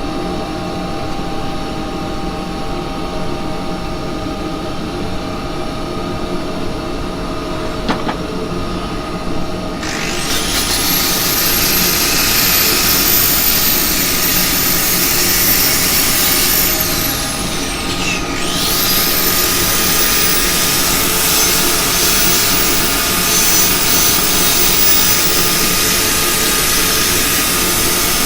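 Axminster wood lathe running steadily, then about ten seconds in a corded power drill spins up with a high whine, slows and speeds up again about 18 seconds in, as it power-sands the spinning cherry.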